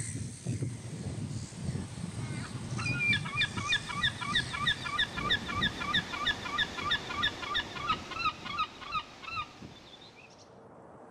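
Oystercatcher piping: a rapid, even run of loud ringing notes, about four a second, starting a few seconds in and fading out near the end, over a low rumble.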